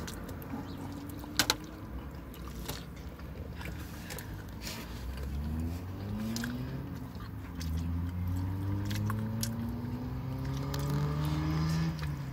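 A vehicle engine hums and rises slowly in pitch over several seconds, heard from inside a car. A sharp click comes about a second and a half in, with smaller clicks scattered through.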